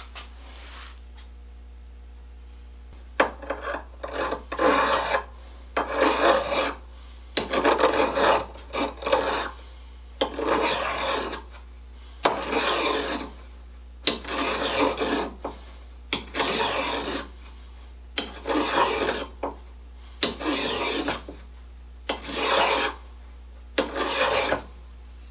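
Flat hand file scraping across a small steel part held in the hand, in about a dozen slow, even strokes, one about every two seconds, starting about three seconds in.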